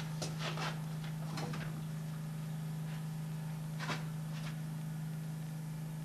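A steady low electrical hum, with a few brief scuffs and rustles in the first second and a half and again about four seconds in.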